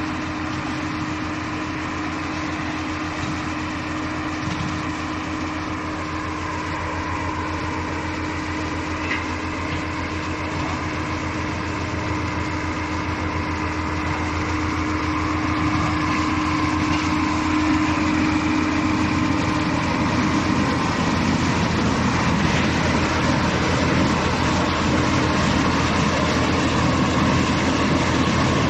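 Mobile wood chipper running steadily, its engine and drum giving a fast even low pulse under a held hum, growing gradually louder through the second half.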